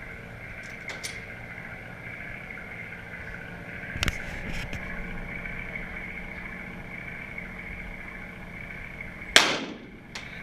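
A Glock pistol shot about nine seconds in, the loudest sound, with a short decaying ring after it; a fainter cluster of sharp cracks comes around four seconds in, with a few light clicks before it. A steady hum lies underneath.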